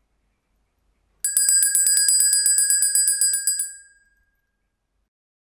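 Handbell rung rapidly, about five to six strikes a second for roughly two and a half seconds, then left to ring out. Bright, high ringing tones.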